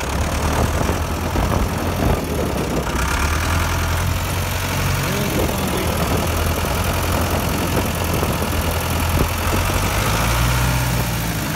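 Ford 6610 tractor's diesel engine running steadily under load while pulling a three-bottom plow through partly frozen ground.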